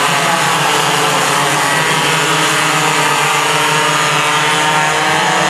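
Several racing kart engines running together as a pack of karts comes through a corner, a loud, steady blend of many engine tones.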